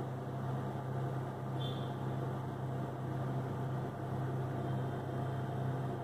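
A Samsung microwave oven running while it heats a bowl of water: a steady low hum with fan noise.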